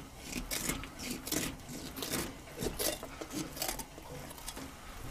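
Kitchen scissors snipping through the belly skin of a tiger pufferfish: an irregular run of short, sharp cuts, about two or three a second.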